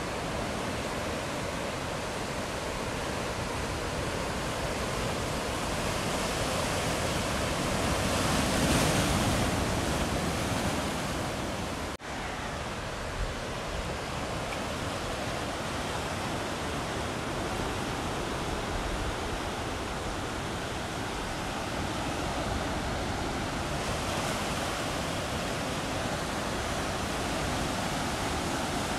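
Steady rush of breaking ocean surf, swelling louder about nine seconds in and cutting out for an instant about twelve seconds in.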